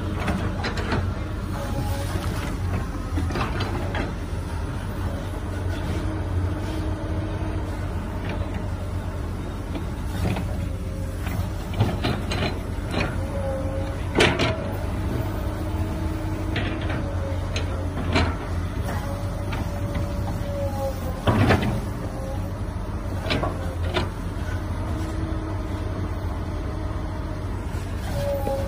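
Komatsu hydraulic excavator working: its diesel engine runs steadily while the hydraulics whine, the pitch rising and falling with each swing and lift of the boom. Soil and rocks knock and clatter as the bucket digs the pile and dumps into the dump truck bed, with the loudest thuds about 14 and 21 seconds in.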